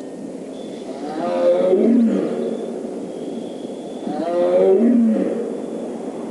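Siberian tiger roars played from a recording, two calls a few seconds apart, each sliding down in pitch at its end.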